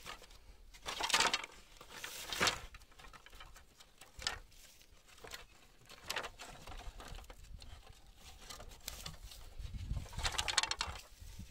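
Hands scraping and rustling in dry dirt and handling thin bamboo strips: a handful of short scratchy scrapes, the last one longer.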